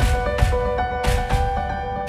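Background music: held melodic notes over a steady drum beat.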